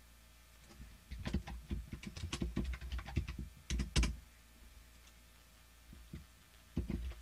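Typing on a computer keyboard: a quick run of keystrokes for about three seconds ending in one louder key press, a pause, then typing starts again near the end.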